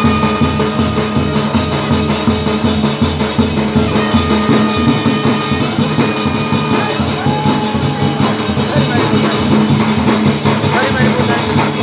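Live Rajasthani Gavri folk music: a hand-beaten barrel drum and a large drum keeping a fast, steady beat, with a few long held ringing tones over it.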